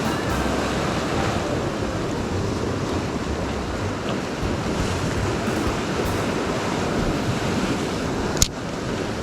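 Sea surf washing against the shore in a swell, a steady rush with wind buffeting the microphone. A single sharp click sounds near the end.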